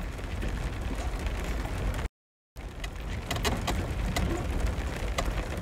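Inside a car's cabin while driving over a gravel road: a steady low rumble of engine and tyres, with scattered sharp ticks in the second half. The sound drops out completely for about half a second around two seconds in.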